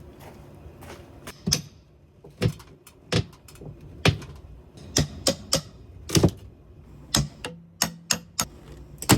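Irregular sharp knocks and clunks, about a dozen, coming roughly one or two a second, like hard objects bumping and being handled.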